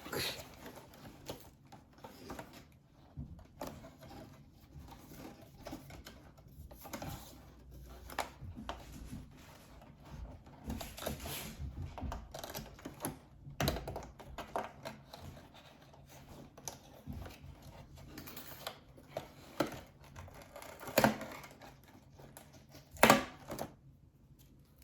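Cardboard and plastic packaging being handled and pried at by hand: irregular small clicks, taps and rustles as an item is worked out of a tight cardboard compartment, with two sharper knocks near the end.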